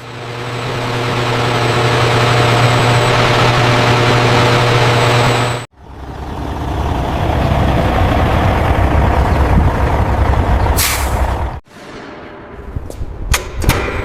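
Loud industrial machinery running: a steady hiss over a low hum. It cuts off abruptly twice, about six and twelve seconds in, and a quieter stretch with sharp clicks follows.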